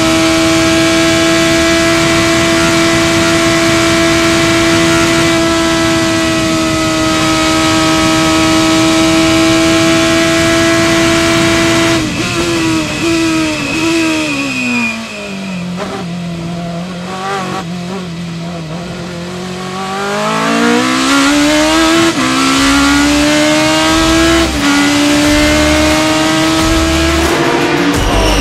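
Lotus 87B's 3-litre Cosworth V8 heard onboard. It holds a steady high note at full throttle for about twelve seconds, then steps down in pitch through quick downshifts under braking and runs low through a slow corner. It then climbs again under acceleration, with upshifts that each drop the pitch.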